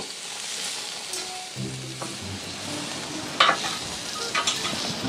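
Chicken and zucchini sizzling steadily on the hot porcelain-enamelled cast iron grates of a propane grill. Metal tongs click against the grate as the zucchini is turned, the sharpest click about three and a half seconds in.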